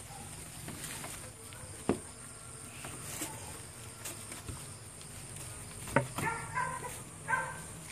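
Red-nose pit bull puppies giving a few short high whimpers near the end, over a steady high insect-like buzz, with a couple of sharp knocks.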